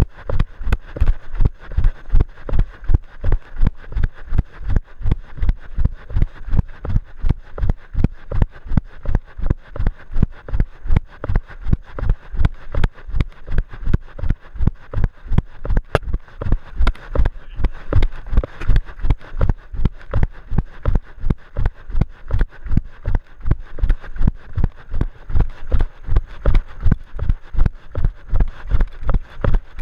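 Running footfalls on a rocky dirt trail, an even rhythm of heavy thuds close to three a second, picked up by a camera carried by the runner, so each stride jolts the microphone.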